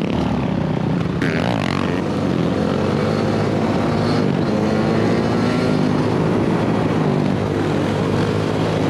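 Suzuki RM85 two-stroke dirt bike engine running at a fairly steady pitch under the rider, mixed with the engines of the nearby quad and another dirt bike.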